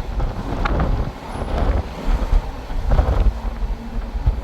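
Wind buffeting the microphone in gusts, a heavy low rumble.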